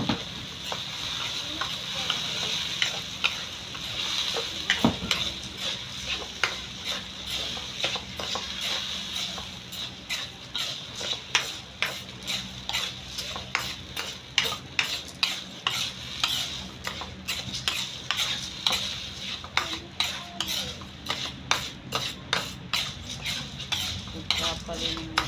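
Metal spoon stirring and scraping mung beans around a hot wok, with a steady sizzle and hiss of steam. The sizzle fades after about ten seconds while the scrapes come sharper and more often, about two a second.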